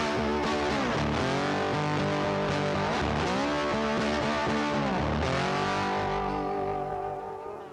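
Background music: sustained notes that glide up and down in long phrases, fading out near the end.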